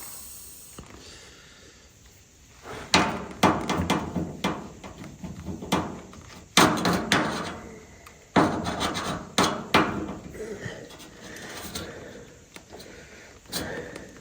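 Irregular clicks, knocks and scraping of hand work as a primary ignition wire is fitted between the coil and distributor of a 1951 Allis Chalmers WD tractor, with the busiest knocking in the middle.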